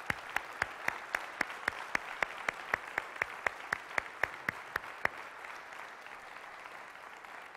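Congregation applauding, with one nearby person's claps standing out in an even rhythm of about four a second. Those claps stop about five seconds in, and the applause then thins a little.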